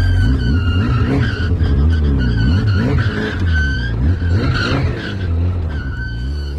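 Off-road vehicle engine revving up and down over and over with wheels spinning, as it tries again to drive out of a stuck spot, with a steady high whine above the engine.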